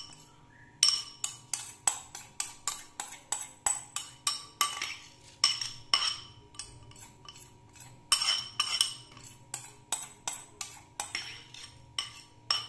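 Metal spoon clinking against a glass bowl in quick repeated taps, about three a second, as rice is scraped and knocked out of the bowl.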